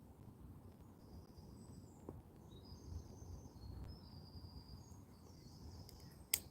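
A small songbird singing a string of high, thin notes at changing pitches over a low outdoor rumble, with one sharp click near the end.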